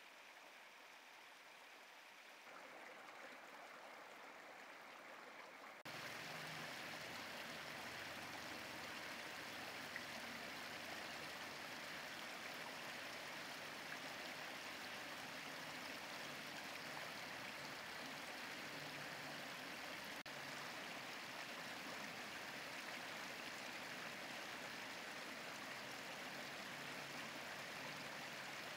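Shallow river flowing over rocks: a steady rush of water, which gets abruptly louder about six seconds in.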